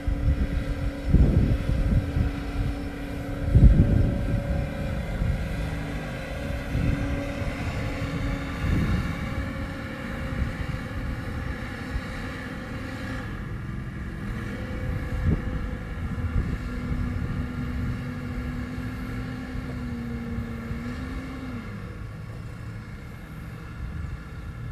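Quadcopter drone's propellers hovering with a steady multi-tone hum that shifts in pitch and drops about 21 seconds in, with wind buffeting the microphone in loud low gusts during the first few seconds.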